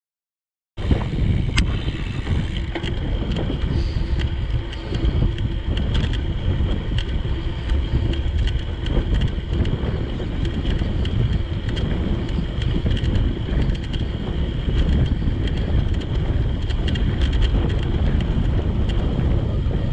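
Wind rushing over the microphone while riding a bicycle: a steady low rumble with faint ticks, cutting in abruptly out of silence about a second in.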